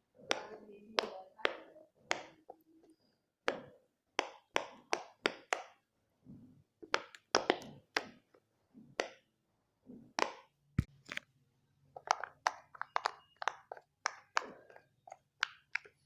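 Silicone pop-it fidget toy bubbles being pressed one after another, a long run of sharp pops in uneven bursts with short pauses, coming quicker near the end.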